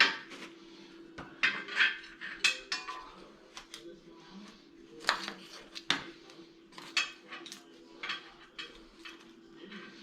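Metal tools and steel parts clinking and clanking irregularly as a grader blade assembly is worked on, with a faint steady hum underneath.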